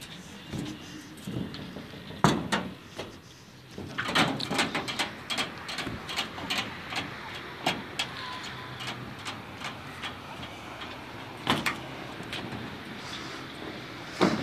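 Footsteps on the wooden planks of an old railway bridge: irregular knocks and thuds as people walk across, the loudest about two seconds in.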